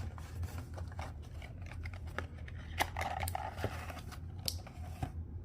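Trading card box and packaging being handled and opened: a busy run of small clicks, crinkles and scrapes that stops about five seconds in.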